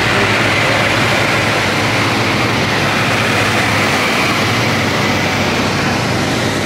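Steady engine drone: a low hum with a broad hiss over it, unchanging throughout.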